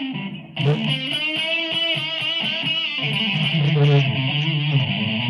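Electric guitar playing a lead solo: long held notes with wide vibrato. About half a second in the sound briefly drops, then a new note is struck and held.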